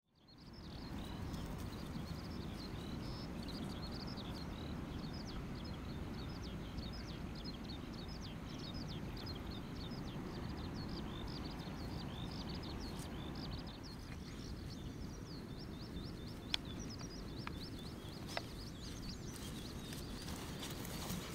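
Many small birds chirping in quick short calls over a steady low rumble of outdoor noise; the chirping thins out about two thirds of the way through, and two sharp clicks come near the end.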